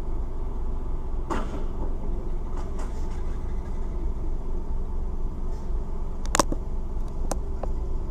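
Steady low rumble of a car sitting in traffic, heard from inside the cabin through a dashcam microphone, with a few scattered clicks and knocks, the sharpest about six seconds in.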